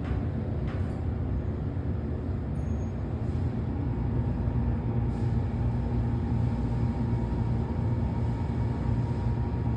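Elevator car travelling down slowly, a steady low rumble and hum from the running car with no starts or stops.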